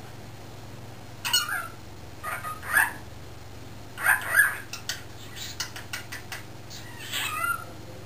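A pet cockatiel's talking chatter: short calls that slide in pitch about a second apart, a quick run of clicks about halfway through, then one more call near the end.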